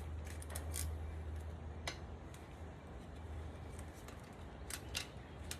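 A few light metallic clicks and clinks as small wheel-hub parts are handled, over a steady low hum.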